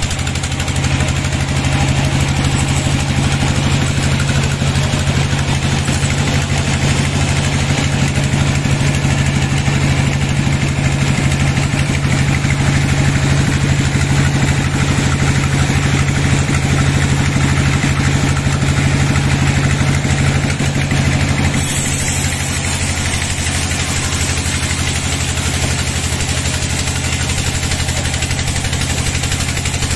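Vertical band sawmill running, its blade cutting lengthwise through a large log: a steady low motor hum under a continuous hissing saw noise. The sound changes character about two-thirds of the way through.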